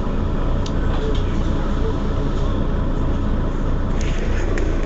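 Mercedes-Benz Citaro Facelift city bus running steadily with an even, low engine hum, with a couple of light clicks about four seconds in.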